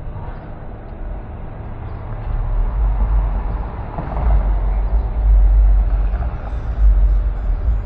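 Car driving on city streets: steady road and engine noise, with a deep low rumble coming in about two seconds in and growing louder.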